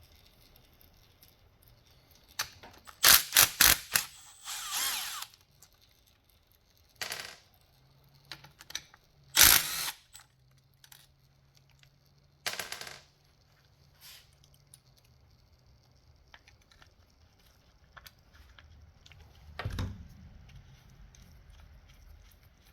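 Scattered metallic clinks and clatters of hand tools and bolts while the starter motor's 8 mm bolts are removed from a dirt-bike engine case. A quick run of sharp clicks comes about three seconds in, followed by a short rattle, then single clanks now and then, the loudest near ten seconds.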